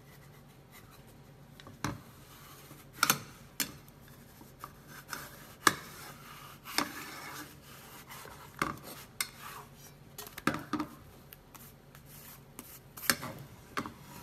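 Spatula scraping and tapping against a nonstick frying pan as it is worked under a pancake to lift it: about a dozen irregular clicks and knocks with short scrapes between them.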